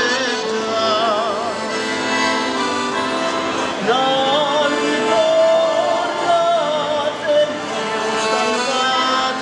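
Live accordion music, with a voice singing along in wavering, vibrato-laden notes.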